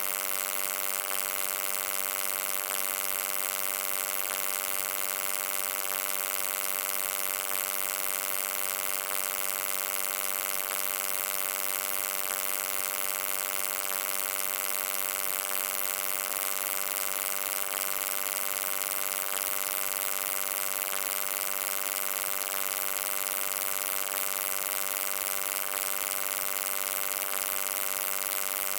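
Steady electrical hum: a buzz made of many evenly spaced overtones over a bright hiss, unchanging throughout.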